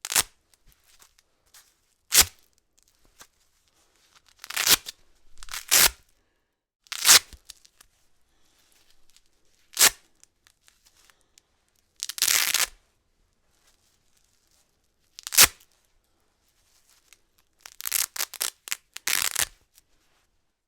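Velcro hook-and-loop fastener being ripped apart again and again, with pauses between: some rips quick and sharp, others slower and longer. Near the end a slow pull comes as a rapid crackling run of short tears.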